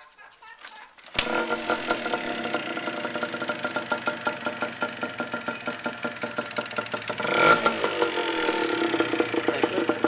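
Motorbike engine starting abruptly about a second in and running with a regular pulsing beat. It is revved up briefly past the middle, then its pitch falls back.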